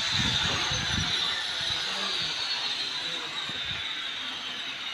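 Hand-cranked open-reel measuring tape being wound in, a steady ratcheting whir. There are low thuds in the first couple of seconds.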